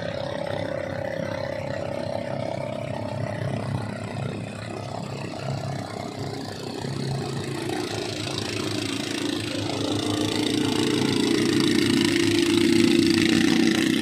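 Motorized bangka boat engine running steadily; about halfway through a second, lower engine note comes in and the sound grows louder toward the end.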